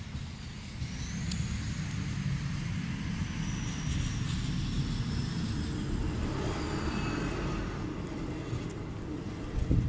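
Passenger train running across a level crossing: a steady low rumble that builds about a second in, with a faint high whine above it and a short knock near the end.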